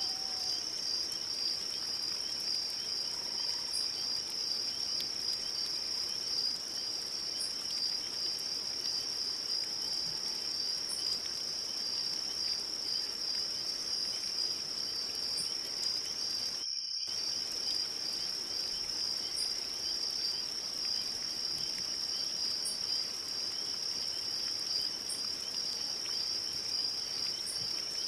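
Crickets chirring in a steady, unbroken high trill, with faint short higher chirps every few seconds. The sound cuts out for a split second a little past halfway, then carries on unchanged.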